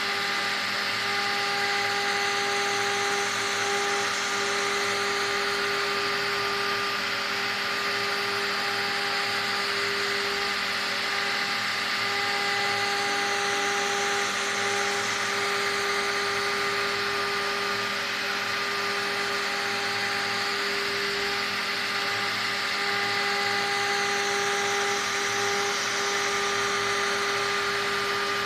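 CNC engraving machine's spindle running with a fine engraving bit cutting into a wood board: a steady high whine with a cutting hiss that swells and eases about every ten seconds as the bit moves along the letter strokes.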